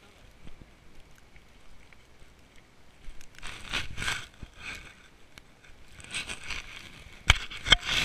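Footsteps crunching through deep snow in irregular bursts, with several sharp knocks near the end.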